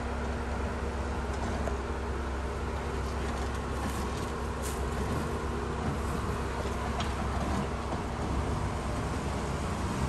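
Jeep Wrangler engine running steadily, with a few light clicks.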